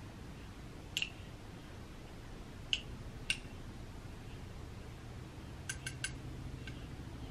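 Spoon clinking and tapping against a small glass baby-food jar as the food is stirred and scooped: scattered light clicks, with a quick run of three or four about two-thirds of the way through.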